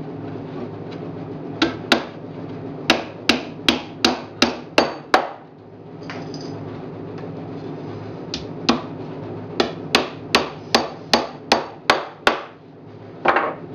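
Hammer driving 2-inch galvanized nails through pre-drilled holes into the pine corner of a beehive deep body: two runs of about nine blows each, roughly three blows a second, one run per nail, with a pause between them.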